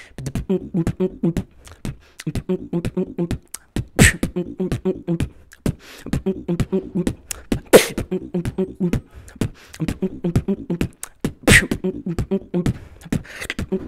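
A man beatboxing: a fast run of vocal percussion clicks and kicks over a hummed bass line in repeating phrases. Loud snare hits come about every four seconds.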